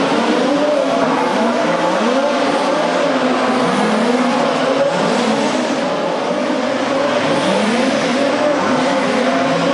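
Several radio-controlled touring cars racing past, their motors rising and falling in pitch as they accelerate and brake through the corners.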